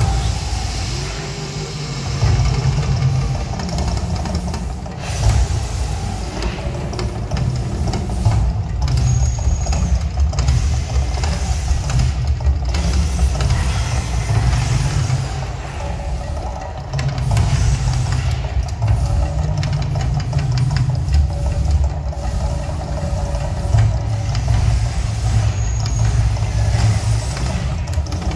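Man-made volcano show erupting: a deep, continuous rumble that swells and eases, with the rushing noise of its gas flame jets.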